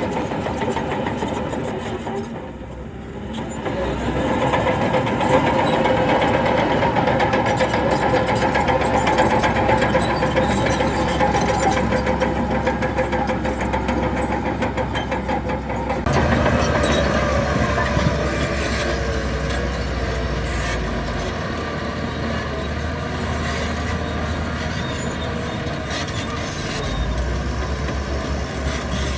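Heavy diesel earthmoving machinery running steadily: bulldozer and dump-truck engines at work. The sound dips briefly a couple of seconds in and changes abruptly about halfway through.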